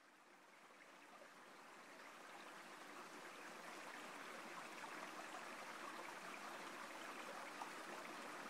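Steady rush of fast-flowing tidal river water, faint at first and growing gradually louder as it fades in.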